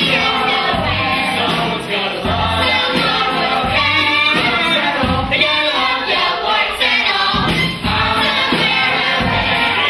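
A stage cast singing together as a chorus over musical accompaniment, in the full-company finale number of a school musical.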